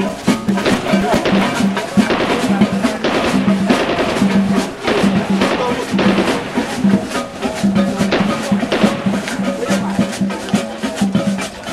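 Percussion-led music with drums and a fast, steady beat over a recurring low note.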